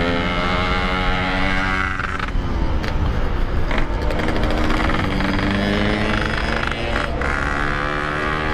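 Yamaha RX-King's 135 cc two-stroke single-cylinder engine running under way through a hollowed stock-style exhaust, its pitch falling off over the first two seconds and climbing again as the throttle is opened about four to five seconds in.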